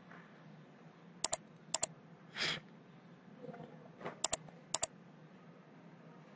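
Computer mouse clicking: about five sharp, paired press-and-release clicks as the page is navigated, with a short hiss about two and a half seconds in over a faint steady hum.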